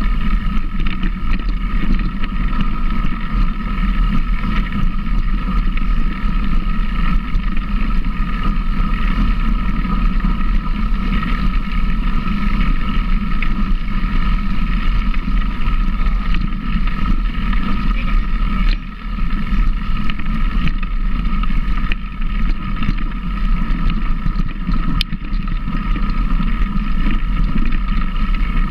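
A motor running steadily under loud wind noise on the microphone.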